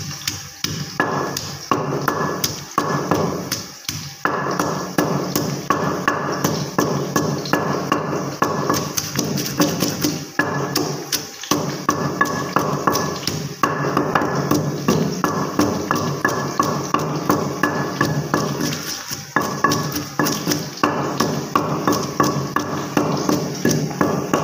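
Wooden pestle pounding garlic in a stone mortar: rapid, repeated knocks as the cloves are crushed to a paste, with a few brief pauses.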